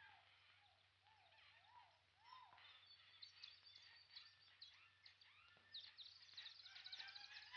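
Faint jungle bird calls: a run of rising-and-falling whistled notes, then rapid high chirps and trills that grow busier toward the end.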